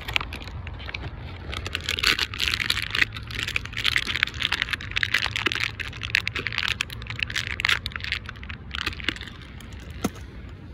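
Close rustling and crinkling, a dense irregular crackle from about two seconds in to near the end, as a fire-starter square is taken out of a bag, with a few sharper clicks near the end.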